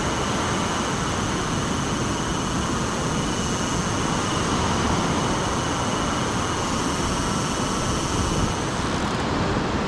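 Steady wind buffeting the microphone over the wash of breaking surf, with a faint, steady high whine running through it.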